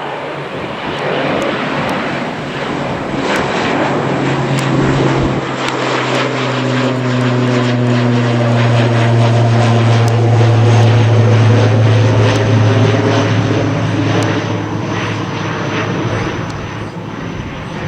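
Propeller airliner passing close by: a steady low propeller drone with a stack of higher tones, swelling to its loudest a little past halfway and then fading.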